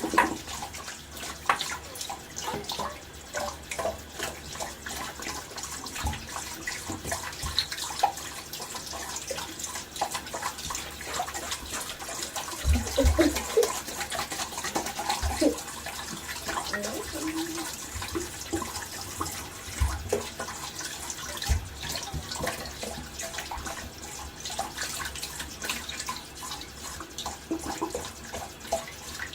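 Sink tap running while a shaving brush is rinsed in a bowl of water, with splashing and occasional knocks.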